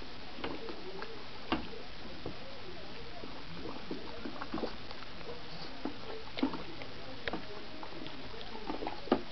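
A wooden stick stirring aniline dye solution in a plastic bucket: the liquid sloshes, and the stick knocks against the bucket a few times, the loudest knock near the end.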